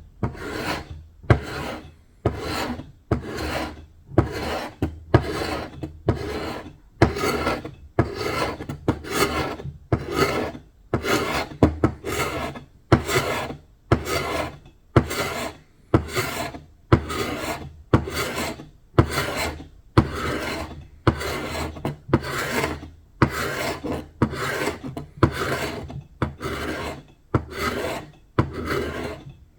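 Hand abrading strokes, sanding or scraping, stripping old paint and finish from a surface, in an even back-and-forth rhythm of about one and a half strokes a second.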